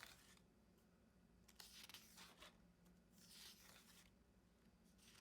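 Faint rustling of paper planner pages being turned, three soft swishes: one at the start, one about two seconds in and one near three and a half seconds.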